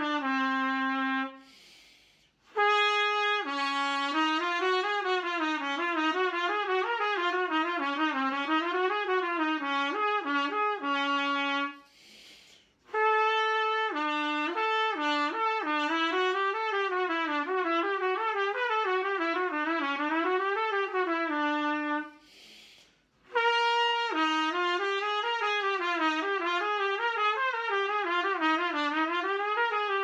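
Trumpet playing fast legato runs that climb and fall in waves, in three long phrases with a quick breath taken between them about 2, 12 and 22 seconds in. The notes are tongued on the open "ho" syllable, which gives a broad, rich tone but makes the note-to-note changes harder.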